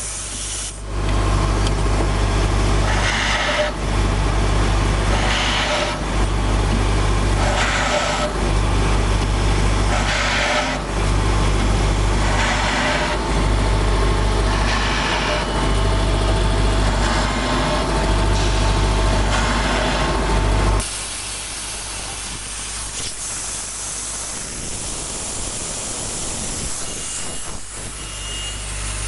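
A CNC brake-lining drilling machine running: its drill motors hum steadily, with a noisy burst about every two and a half seconds, one for each drilling cycle. About 21 seconds in the motors stop, leaving a quieter hiss, and short repeated beeps sound near the end.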